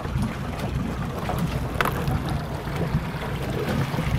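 A boat's engine idling steadily with wind on the microphone, with a short sharp splash or knock about two seconds in; toward the end a small fish splashes at the surface beside the hull as it is reeled in.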